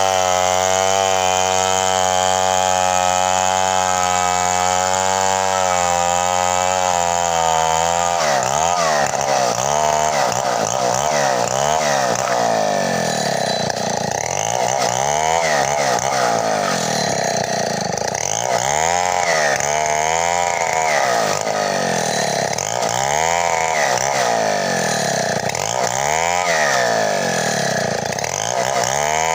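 Two-stroke chainsaw at full throttle, ripping along a bayur log. The engine note holds steady for about the first eight seconds. After that it repeatedly sags and recovers, about every two seconds, as the chain bites into the wood and clears.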